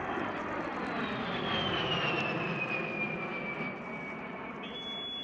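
A-10 Thunderbolt II's twin TF34 turbofan engines flying past: a steady rush of jet noise with a high whine that slides down in pitch over a few seconds. The sound swells and then eases as the aircraft goes by.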